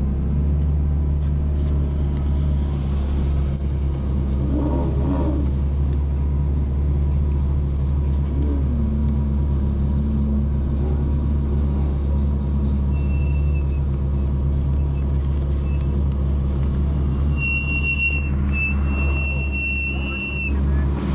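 Car engine running steadily at low speed, heard from inside the cabin as a continuous low hum.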